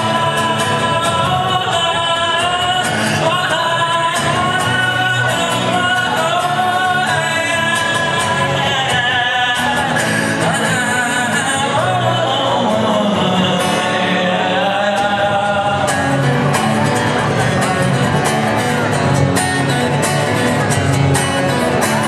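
A song with a sung melody over instrumental backing; the voice holds long, wavering notes.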